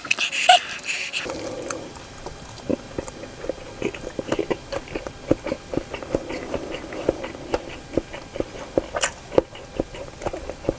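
A person chewing food close to the microphone, with wet mouth clicks and smacks several times a second, a little louder in the first second or so.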